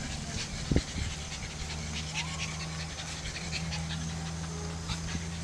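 A pug panting in quick, irregular breaths, with one brief thump about a second in and a steady low hum underneath from then on.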